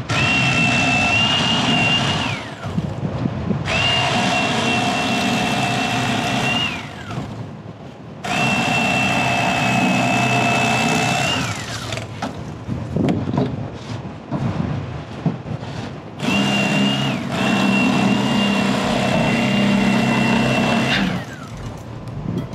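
Bubba Blade electric fillet knife running in four bursts of a few seconds each, a steady high whine with a buzz beneath it, dropping in pitch as the motor winds down at the end of each burst. It is slicing a sheepshead fillet away from the backbone.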